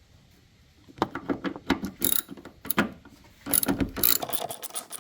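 Hand ratchet on a socket extension clicking as it loosens a rusty bolt, starting about a second in, with irregular clicks and then a fast, even run of clicks near the end.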